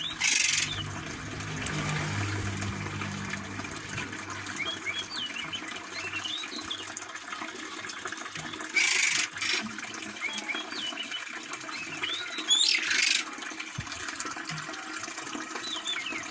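Oriental magpie-robins (kacer) calling: thin short chirps and whistles, broken by three harsh hissing calls of about half a second each.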